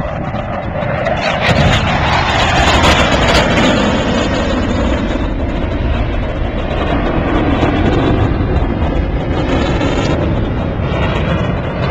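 Loud jet engine noise from Blue Angels F/A-18 Hornet jets flying past, swelling over the first couple of seconds and then holding steady.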